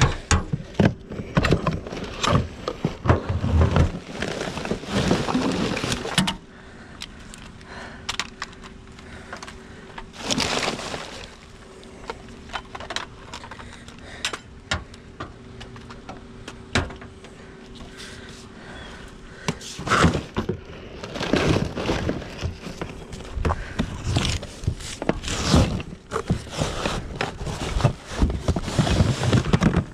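Trash being rummaged with a grabber tool: plastic bags crinkling and rustling, with knocks and clatter of items being shifted. The rummaging is busiest for the first six seconds and again in the last ten, with a quieter stretch between where a faint steady hum is heard.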